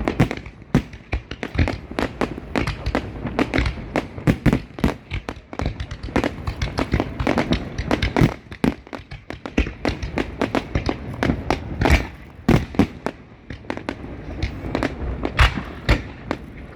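Fireworks going off in a rapid, continuous barrage of bangs and crackles, many per second, with the loudest bangs about twelve seconds in and again near the end.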